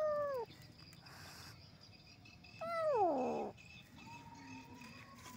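Cat meowing twice, each meow falling in pitch; the second, about two and a half seconds in, is longer and drops lower.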